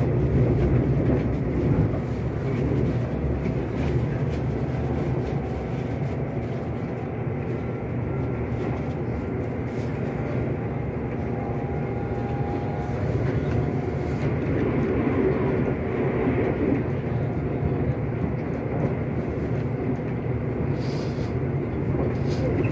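Steady rumble of an electric express train running along the track, heard from inside the passenger car.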